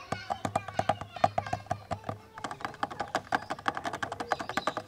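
Fingers tapping and scratching on a camera body: a fast, uneven run of sharp clicks and taps, several a second.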